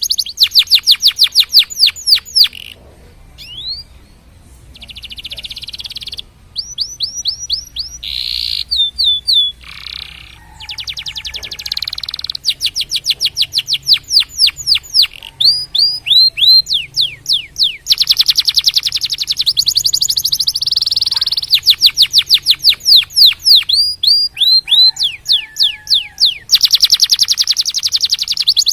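Domestic canary singing a long, varied song of rapid trills: runs of quick repeated notes sweeping downward, changing to a new phrase every second or two, with a few brief pauses.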